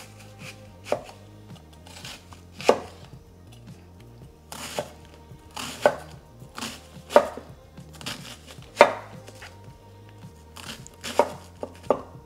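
Chef's knife chopping an onion on a wooden cutting board: about a dozen sharp knocks of the blade on the board, irregularly spaced and coming closer together near the end.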